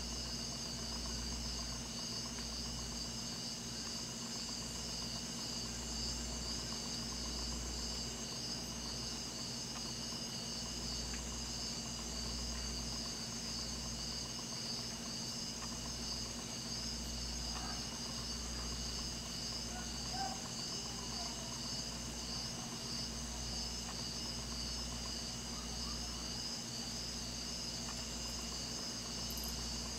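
Tropical night chorus of insects: several steady high-pitched trills at different pitches, one of them pulsing rapidly, over a low rumble. A few faint, lower chirps come a little past the middle.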